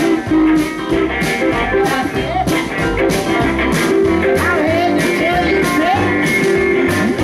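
Live blues band in full swing: electric guitars with bent notes over upright double bass and a drum kit keeping a steady beat.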